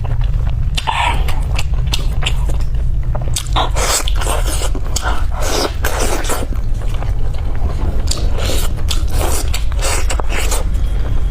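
Close-up chewing and gnawing at pork leg bones, the meat torn and scraped off the bone with irregular wet smacks and crackles, over a steady low hum.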